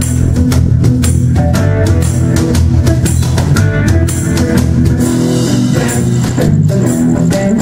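Live band playing: guitar over bass guitar and a drum kit keeping a steady beat. The deepest bass drops away about five seconds in.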